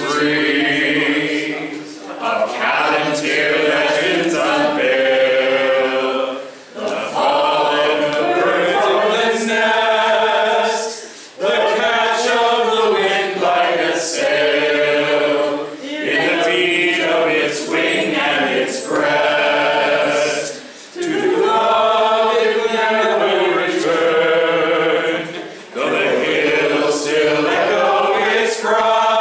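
A small group of voices singing a song together, in sung phrases broken by short breath pauses about every four to five seconds.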